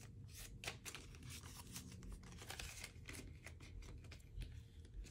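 Faint rustling and light ticks of paper banknotes being handled and slipped into budget binder envelopes.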